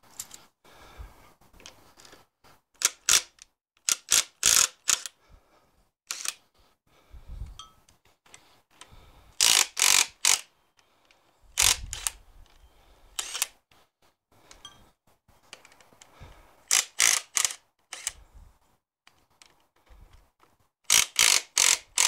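Makita 18V cordless impact wrench undoing nuts in a series of short bursts of rapid hammering, with pauses between them and a few dull knocks.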